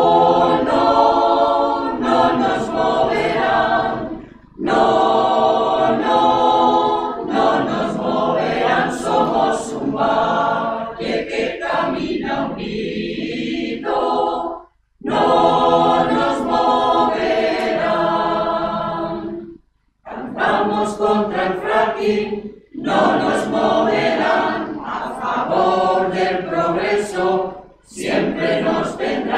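Mixed choir of women's and men's voices singing a cappella, in sustained phrases broken by short pauses for breath.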